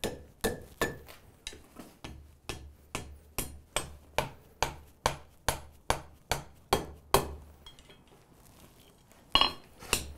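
Hand hammer striking a red-hot iron bar on an anvil in steady blows, about two to three a second, flattening the iron. The blows stop for about two seconds near the end, then resume.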